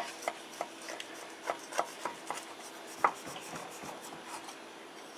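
Paring knife sawing through a crunchy streusel crumb topping and pie crust, a scratchy rasping broken by irregular small crunchy clicks, the sharpest about three seconds in.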